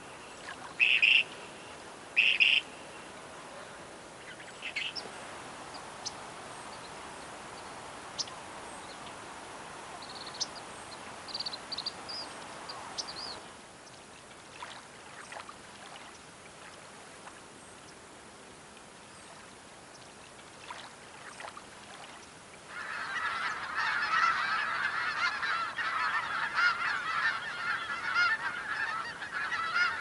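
A few loud, short bird calls near the start and scattered faint chirps. From about two-thirds of the way in, a large flock of snow geese calls all at once in a dense, continuous clamour of honks.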